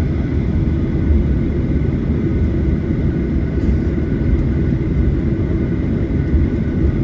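Steady low rumble of a Boeing 737-900ER's CFM56-7B engines and airflow, heard inside the passenger cabin, with faint steady high tones above it.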